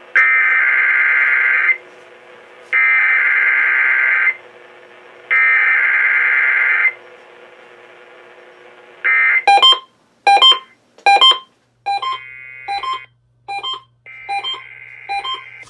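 Emergency Alert System test tones: the SAME digital header, three harsh, screechy data bursts of about a second and a half each, about a second apart. From about nine seconds in, a rapid run of short electronic beeps follows, with steady tones sounding between them towards the end.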